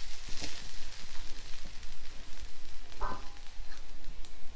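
Fried rice sizzling in a hot wok while a wooden spatula scrapes it out into a bowl, with small scraping clicks throughout and one louder knock with a brief ring about three seconds in.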